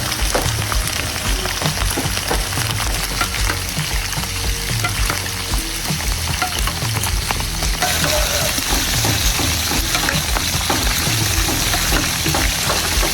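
Food frying in hot oil: a steady sizzle full of small crackling pops, getting brighter and hissier about eight seconds in.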